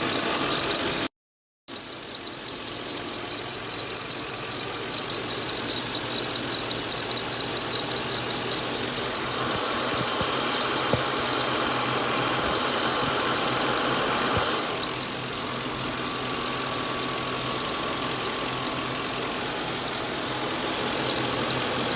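2007 Lincoln Town Car's V8 idling with a steady, high-pitched chirping squeal from a failing idler pulley on the accessory belt. The sound cuts out briefly about a second in.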